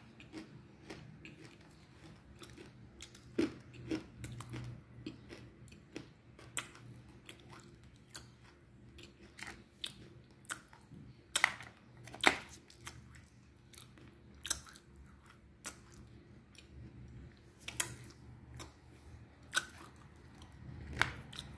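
A person chewing chunks of Black Hole eating clay in the mouth, with irregular sharp crunches among softer chewing sounds. The loudest crunches come a little past halfway.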